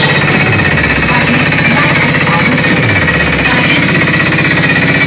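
Very loud, heavily distorted bass from a DJ loudspeaker stack: a fast, rattling pulse, with a deep falling bass sweep about half a second in and another near three seconds.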